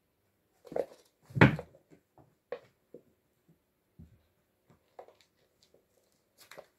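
Two kittens play-fighting on a wooden floor: irregular thumps, bumps and scuffles as their bodies and paws hit the floor, the loudest a sharp knock about a second and a half in.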